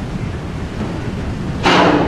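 Steady low rumble of a docked ro-ro ferry with wind on the microphone. Near the end a sudden, loud, hissing burst lasts about a third of a second.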